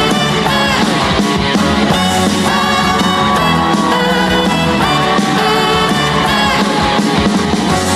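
Instrumental introduction of an upbeat trot song playing loud, with a held lead melody over a steady beat.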